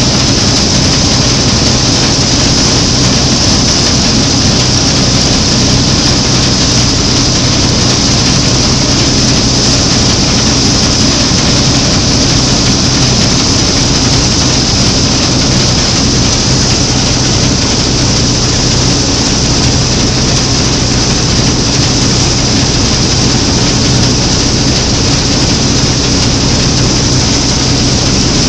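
Claas Matador Standard combine harvester running steadily while cutting and threshing triticale, heard from the driver's platform: a steady engine tone over a dense, even rattle of the working machine.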